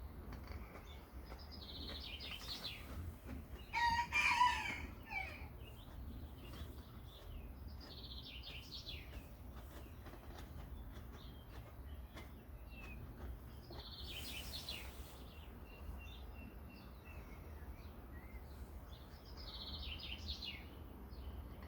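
Birds calling: one loud crow about four seconds in, with shorter high chirps every few seconds, over a steady low rumble.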